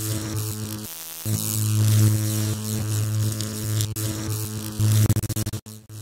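Electrical buzzing hum of a logo sound effect: a steady low mains-like hum with overtones, dropping out briefly about a second in, then flickering in a rapid stutter near the end before cutting off.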